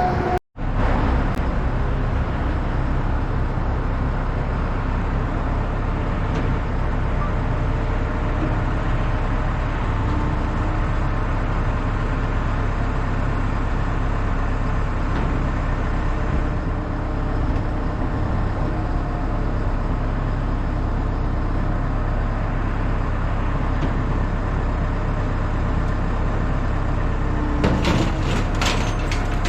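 Crane truck's engine running steadily, a dense low rumble throughout. The sound drops out for an instant about half a second in, and a few sharp metallic clanks come near the end.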